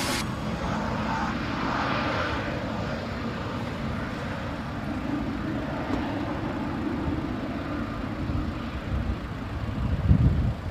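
Lufthansa Cargo Boeing 777 freighter's GE90 turbofan engines running with a steady rumble as the jet rolls along the runway. There are a few louder low bumps near the end.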